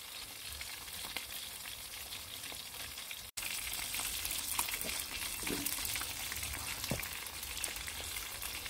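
Pieces of silver snapper frying in hot oil in a steel bowl, a steady sizzle with fine crackling. The sizzle gets a little louder after a cut about three seconds in.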